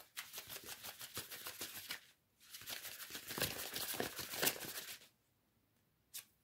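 A deck of tarot cards being shuffled by hand in two runs of about two and a half seconds each, a dense rapid flicking and rustling of card edges, followed by one light tap near the end.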